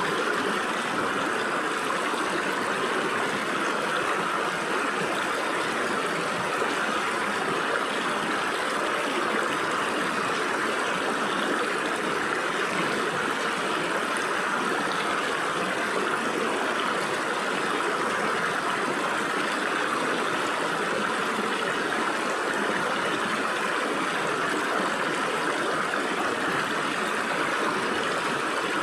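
Stream water running and gurgling through gaps between rocks, a steady, even rush.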